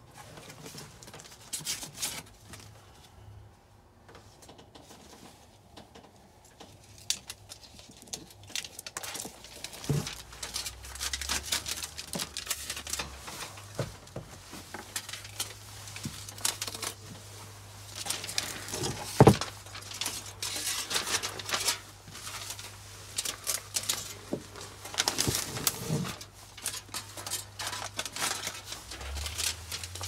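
Irregular rustling and crinkling with scattered light clicks and knocks, one sharper knock about 19 seconds in. A faint low steady hum comes in about 14 seconds in.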